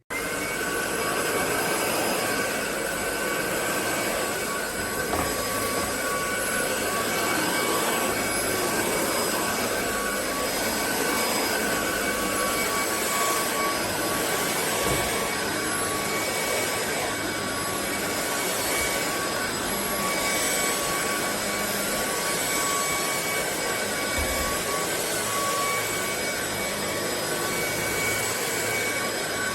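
Hoover ONEPWR WindTunnel Emerge cordless stick vacuum running steadily: a rush of air with a high motor whine, starting abruptly at the beginning.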